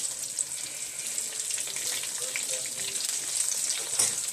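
Chicken nuggets deep-frying in hot oil in a steel mesh basket: a steady sizzle with fast, fine crackling pops. One sharper click sounds near the end.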